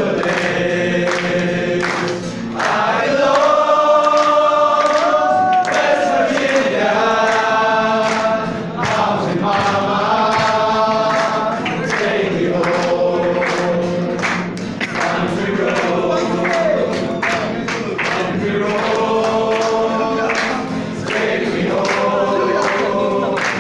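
A group of young men's voices singing a song together into microphones, holding long notes.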